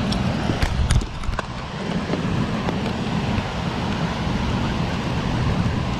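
Steady rush of spillway water churning and falling, with a few sharp clicks about a second in.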